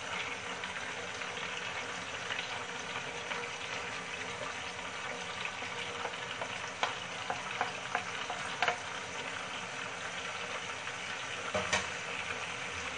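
Chicken pieces frying steadily in hot oil with whole spices in a nonstick kadhai, as ground spices are tipped into the pan. Scattered light clicks and taps sound over the sizzle, a few louder ones about seven to nine seconds in and again near the end.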